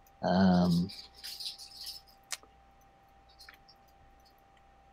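A brief voiced murmur at the start, then scattered computer keyboard and mouse clicks, with one sharp click about two seconds in, as hotkey and click combinations are tried.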